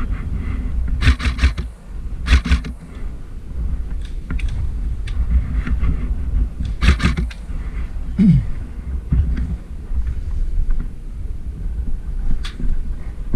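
Three short bursts of rapid clicks from an airsoft gun, about a second, two seconds and seven seconds in, over a steady low rumble of wind and movement on the camera microphone.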